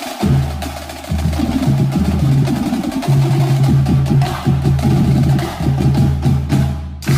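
Marching battery drumline playing: snare drums and tenor drums beating rapid patterns over deep, sustained bass drum tones. The ensemble cuts off suddenly near the end, followed by a single sharp accented hit.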